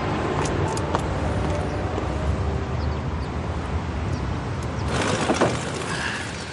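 Street traffic noise: a steady low rumble of passing cars. About five seconds in, a brighter hiss comes in.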